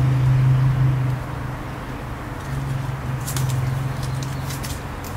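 A low, steady hum, loudest in the first second, with a few short, sharp metallic clicks near the end from pruning shears opening and closing at aloe vera stems.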